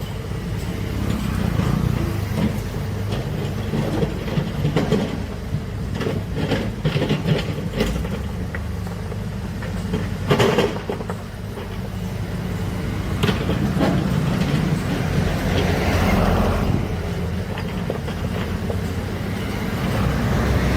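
Large diesel engine of heavy earthmoving machinery running steadily under load, with scattered sharp knocks and clanks of working machinery. The loudest knock comes about halfway through.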